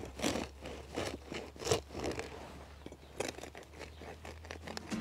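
Serrated bread knife sawing through the hard crust of a round sourdough loaf, a crunching rasp with each back-and-forth stroke.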